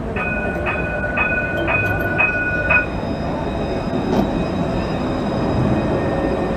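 An Alstom Citadis tram's warning bell rings six times, about twice a second, as the tram rounds a curve. After that the tram runs on with a steady rumble of wheels on rail and a faint high whine.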